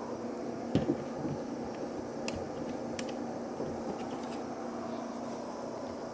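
A steady hum, with a few light knocks about a second in and two sharp clicks a little later.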